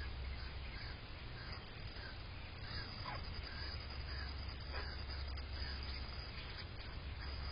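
Birds calling with many short chirps, and a couple of short downward-sliding calls a few seconds in, over a steady low rumble.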